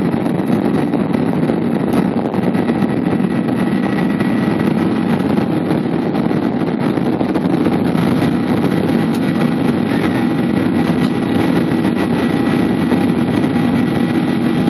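Jet airliner's engines at takeoff and climb thrust, heard inside the cabin: a loud, steady rush with a faint thin whine above it.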